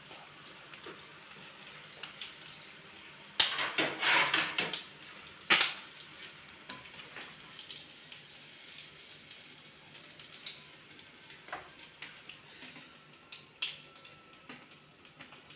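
Samosas deep-frying in hot oil in a kadai, with a light crackle and small ticks throughout. A metal spoon clatters and scrapes against the pan as the fried samosas are lifted out, with a few louder clatters about three to five seconds in.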